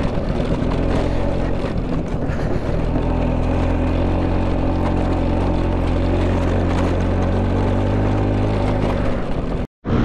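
Scooter engine running steadily under way on a rough dirt track, its even drone mixed with wind and road noise. The sound breaks off for an instant near the end.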